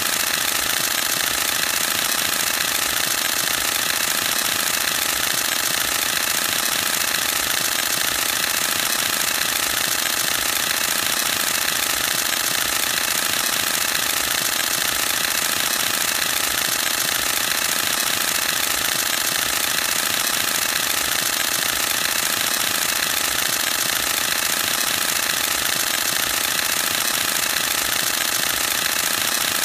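Canon EOS-1D X Mark II DSLR shooting a continuous high-speed burst: the mirror and shutter cycling in a rapid, even clatter with no break.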